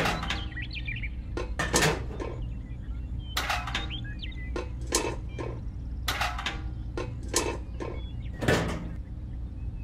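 Scattered light clicks and clatters of small hard parts, about eight in all, as a miniature model cement mixer is handled, over a steady low hum.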